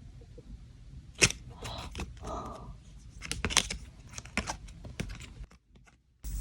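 Hands handling K-pop album packaging: scattered sharp taps and clicks with soft rustling of paper and plastic. The sound drops to near silence just before the end.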